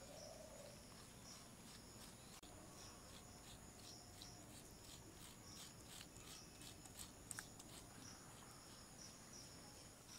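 Near silence with faint insect chirping: short high chirps repeating about twice a second over a steady high whine, and a few soft ticks about seven seconds in.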